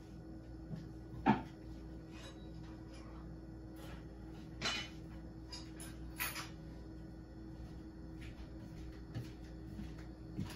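A few sharp knocks and clinks of kitchen things being handled and set down, the loudest about a second in, over a faint steady hum.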